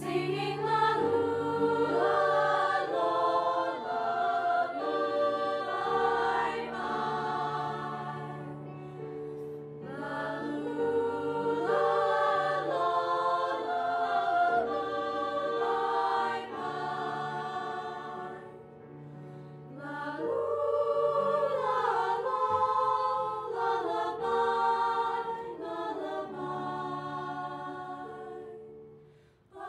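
High school choir singing in several parts, in long phrases with brief breaks between them. The sound dips almost to silence just before the end, then the singing starts again.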